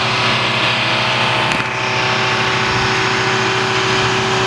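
A machine's motor running steadily: a constant drone of several steady tones under a hiss, with no change in speed.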